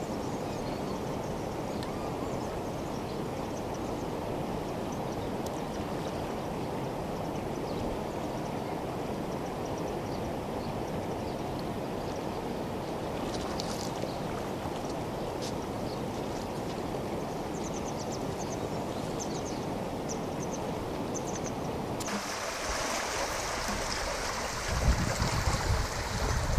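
Steady rush of moving water, with faint splashing about halfway through as a cow wades through the shallows. Near the end it gives way to wind buffeting the microphone in loud, uneven gusts.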